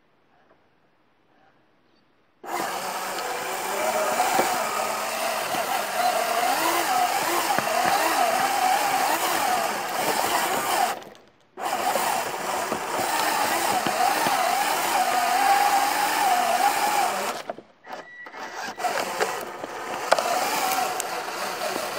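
Small electric motors and plastic gears of a Lego Technic remote-control car whining as it drives, the pitch wavering with load. The whine starts about two seconds in, cuts out briefly partway through, and goes stop-start near the end.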